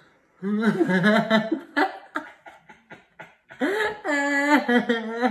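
A person laughing and making drawn-out, open-mouthed vocal sounds in two long bouts, the second starting about three and a half seconds in.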